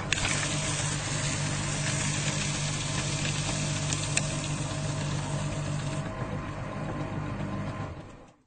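Electric paper shredder running: a steady motor hum under the loud rasp of paper being cut for about the first six seconds, with a couple of sharp ticks near four seconds. The noise drops away while the motor runs on empty, then it winds down and stops about eight seconds in.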